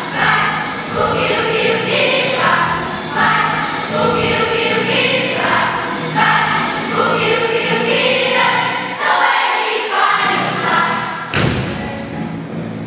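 A children's choir singing an upbeat English song in unison over rhythmic instrumental accompaniment, with a single thump about eleven seconds in.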